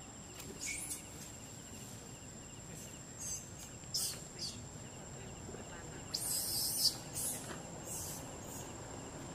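Outdoor forest ambience: a steady high insect drone, broken by several short high hissing bursts, the longest and loudest about six to seven seconds in.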